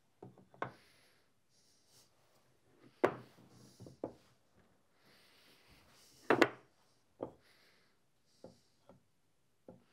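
Glue-coated sycamore and oak blocks being set and slid into place against each other in a clamping jig: a series of separate wooden knocks with light rubbing between them, the loudest about three seconds in and about six seconds in.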